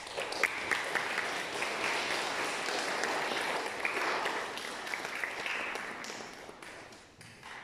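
Congregation applauding: many hands clapping at once, starting suddenly and dying away over the last second or two.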